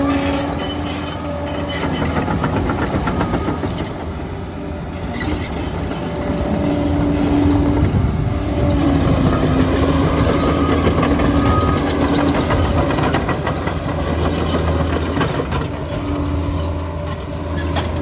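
Liebherr 746 crawler dozer working: its diesel engine runs steadily with the steel tracks clattering continuously, and a pitched whine comes and goes several times.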